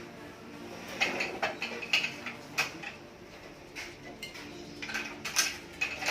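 Irregular sharp metallic clicks and ticks from working a manual badminton racket-stringing machine: clamps, tensioner and string being handled, about eight clicks spread unevenly.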